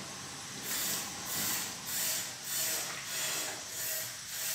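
Close-up wet chewing of a hand-eaten meal of rice and vegetables, pulsing evenly about three times every two seconds.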